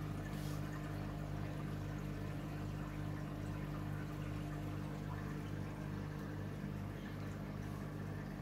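Aquarium running: a steady low hum from its pump with water pouring and bubbling into the tank.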